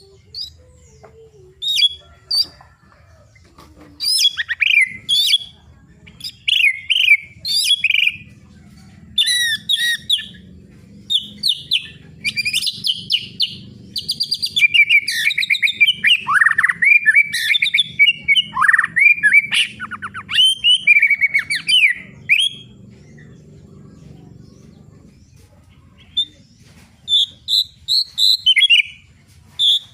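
White-rumped shama (murai batu) singing: a long, varied run of rich whistles, quick chattering notes and falling whistled sweeps, in bursts with short pauses, busiest in the middle. A faint low hum runs underneath.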